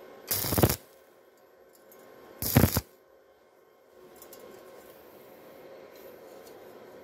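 Stick (arc) welder tacking a rusty steel plate to a galvanized tube: two short bursts of arc crackle, each about half a second, about two seconds apart.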